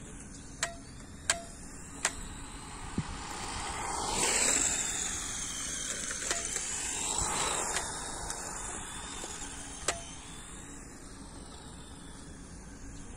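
Sharp plastic clicks from a stick-type RC transmitter, four in the first three seconds and one more near ten seconds in. Between them, a rushing noise swells and fades from about four to eight seconds in.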